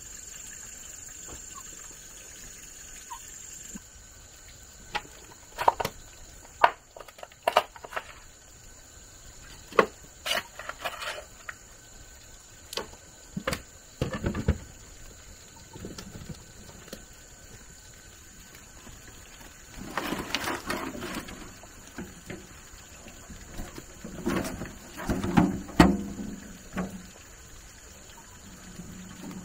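Irregular sharp knocks and clatters, coming thicker in two busy stretches about two-thirds of the way in, over a faint steady high-pitched tone.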